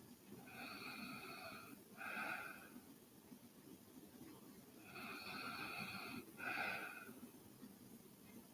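A sleeping woman's quiet breathing and light snoring: two breaths about four seconds apart, each a longer drawn sound followed by a shorter, sharper one.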